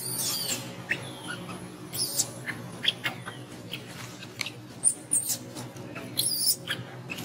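Baby macaque giving a string of short, high-pitched squeaks and squeals while at its mother's belly, the longest a wavering squeal a little past the middle.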